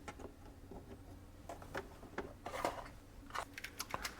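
Faint, scattered small clicks and rustles of hands handling component leads on an electronics breadboard.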